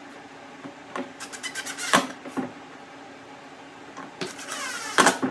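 Two runs of rapid ratcheting clicks, each speeding up and ending in a sharp snap, as the crate's hardware is fastened, over a steady low hum.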